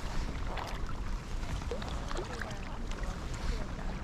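Water dripping and lapping around a kayak: scattered small drips and clicks over a steady low rumble of wind on the microphone.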